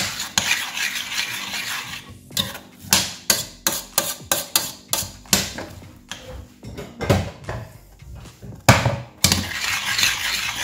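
Metal spoon stirring thick porridge in a stainless steel saucepan, with repeated irregular clinks and scrapes against the pot's sides and bottom.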